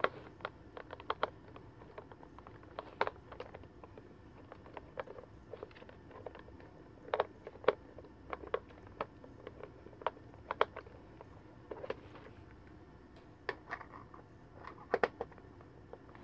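Scattered, irregular light clicks and taps of a Gemmy animated spinning macaw toy's plastic body being handled and worked on by hand during disassembly.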